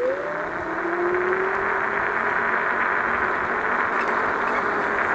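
Electric scooter's motor whining while riding, its pitch rising over the first second or so and then holding steady, over a continuous rush of road and wind noise.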